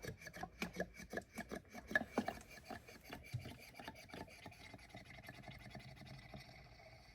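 Motor oil pouring from a jug through a funnel into the oil filler of a 2010 Ford Focus engine. It glugs irregularly for the first few seconds, then settles into a steadier, quieter stream.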